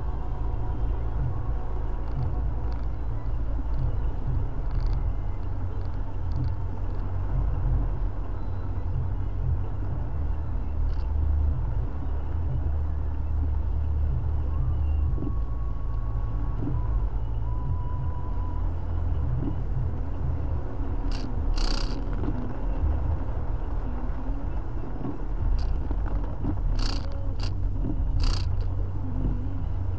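A car's engine and road noise as a steady low rumble heard from inside the cabin while creeping through traffic. A few short, sharp high clicks come in the second half.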